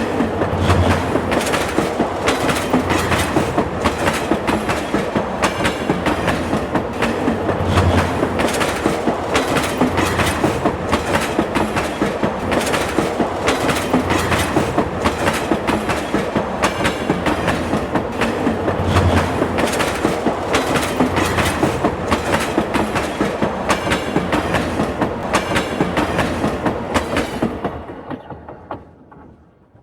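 Subway train running on the rails, its wheels clacking rapidly and regularly over rail joints above a steady rumble. The sound dies away over the last couple of seconds.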